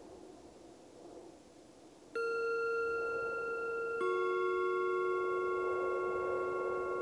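Soft wind, then a singing bowl is struck about two seconds in and a second, lower-pitched bowl about two seconds after that. Both ring on steadily together.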